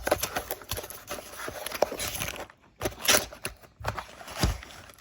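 Packaging of a socket set being opened and handled by hand: irregular rustling, crinkling and small clicks and knocks.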